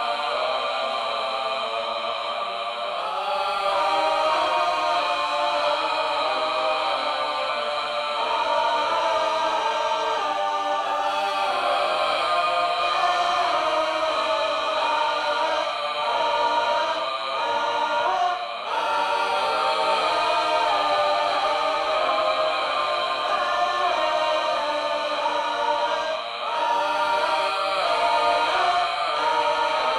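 A choir-like group of voices chanting and singing in layered, sustained tones, with two brief dips, one past the middle and one near the end.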